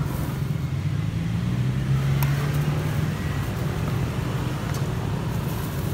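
Steady low drone of street traffic, a motor vehicle engine running nearby, a little louder two to three seconds in.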